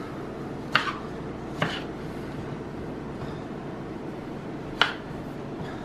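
A kitchen knife cutting through tomatoes on a wooden cutting board, the blade knocking on the board three times over a steady low background noise.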